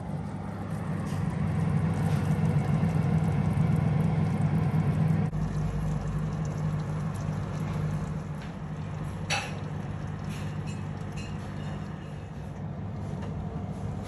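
Fan-forced oven's fan humming steadily with the oven door open. There is a sharp click about nine seconds in, and a few lighter clicks and knocks follow as the tray and rack are handled.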